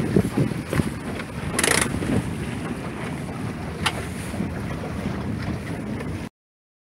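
Wind buffeting the microphone aboard a Drascombe sailing boat under sail, gusty at first and then steadier, with a brief hiss about a second and a half in and a sharp click about four seconds in. The sound cuts off abruptly near the end.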